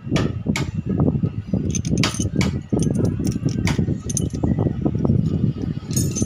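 Sharp metal clinks of a toothed timing-belt sprocket and its bolt being handled, about half a dozen scattered through, over a steady low rumble.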